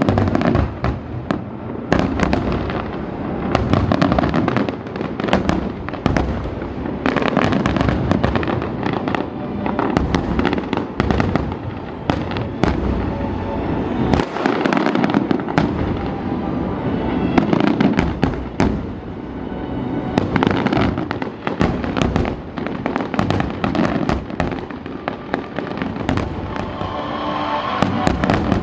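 Fireworks display finale: aerial shells bursting in a dense, unbroken barrage, many sharp bangs a second overlapping one another.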